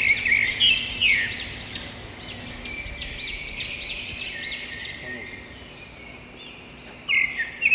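Birds singing: a quick run of arched, high chirping notes, about three a second, for the first five seconds, then fainter, with another burst of calls near the end.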